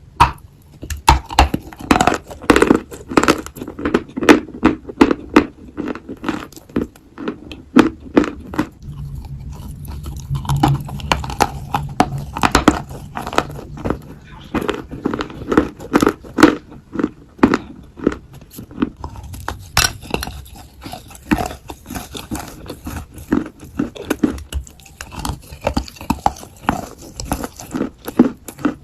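Dry, powdery Turkestan white clay being bitten and chewed, with many irregular crisp crunches in quick succession.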